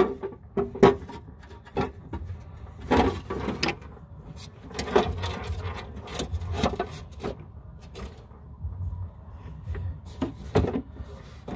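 Stamped-steel oil pan of a Jeep Cherokee XJ knocking and scraping against the chassis as it is worked loose by hand: a handful of irregular clunks and rubs.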